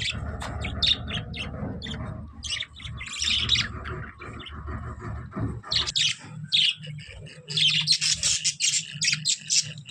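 Budgerigars chirping and squawking in quick, overlapping calls, a dense chatter that keeps going throughout.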